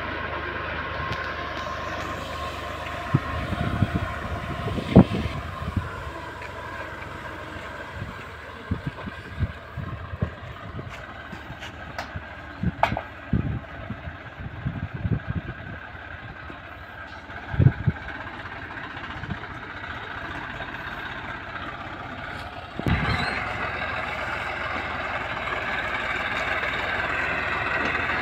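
Tractor engine running steadily as it pulls a boom sprayer, with short low thumps scattered through the first two-thirds. The engine sound steps up and stays louder about two-thirds of the way through.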